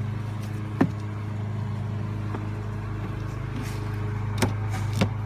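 Plastic trim pieces of a cabin filter housing being handled and fitted: a sharp click about a second in and two more near the end, over a steady low hum.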